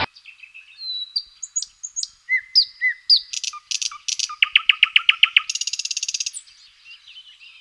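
A songbird singing a varied song: separate whistled notes, then a run of repeated notes at about seven a second, then a fast high trill about six seconds in, fading to fainter bird calls near the end.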